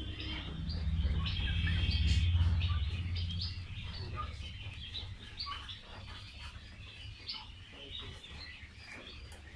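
Birds chirping and calling in short high notes throughout, with a brief rapid trill early on. Under them runs a low rumble that is loudest in the first few seconds, then fades.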